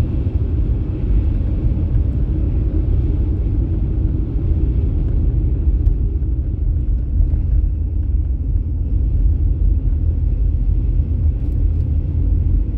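Steady low rumble of a car on the move, with road and engine noise heard from inside the cabin.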